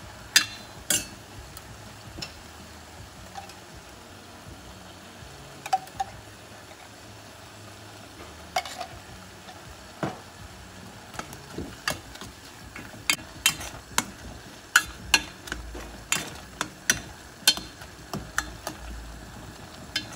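Stainless steel ladle clinking and scraping against a stainless steel pot as greens are stirred with coconut milk, over a low steady sizzle. The clinks are few and scattered at first, then come about twice a second through the second half.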